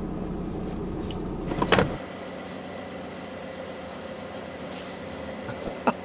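VW Crafter van's diesel engine idling steadily, heard inside the cab, with a short louder sound near the end of it. About two seconds in the engine sound stops abruptly and a quieter steady hum follows, with a single click near the end.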